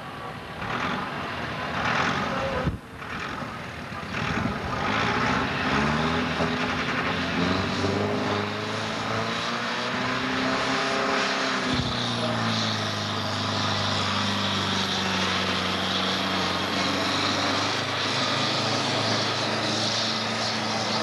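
Farm tractor's diesel engine at full throttle pulling a weight-transfer sled. Its pitch rises and falls for several seconds, then holds steady from about halfway on.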